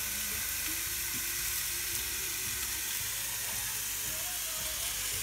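Ribeye steak sizzling steadily between the closed hot plates of a Tefal Optigrill XL contact grill, at the start of cooking.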